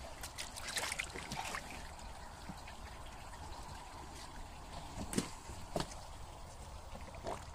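Water trickling and lightly splashing as a carp is handled between a fish transport tank and a tub of water, with a few brief sharp splashes or knocks in the first second and a half and again about five and seven seconds in.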